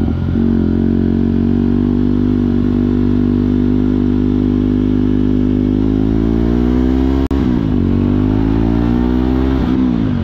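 Jawa 42 Bobber's single-cylinder engine running under way, loud and steady. Its note climbs slowly, drops briefly about seven seconds in, then dips and picks up again near the end.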